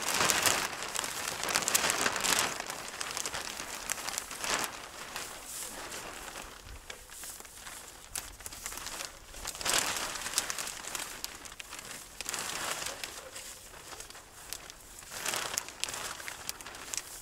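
Thin plastic sheeting crinkling and rustling in irregular bursts as it is pulled and spread over a stick frame, loudest in the first couple of seconds.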